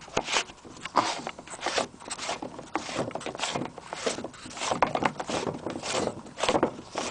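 Threaded PVC pipe cap being unscrewed by hand: plastic threads rasping and scraping in a series of short, irregular strokes as the cap is turned.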